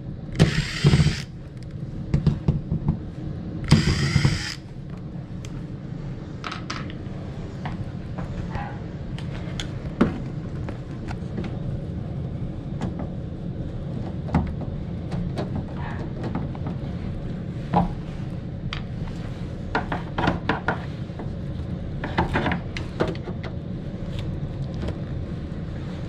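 Carrier heat pump air handler running with a steady low hum. Two short, loud whirring bursts come near the start, followed by scattered clicks and knocks of hands working on the unit.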